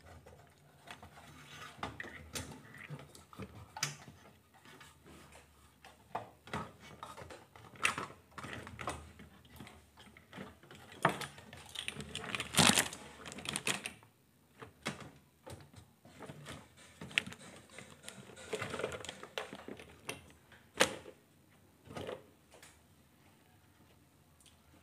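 Irregular clicks, knocks and rattles of amplifier circuit boards and their wiring being handled and pulled out of a metal chassis, with the loudest, longest clatter a little past the middle.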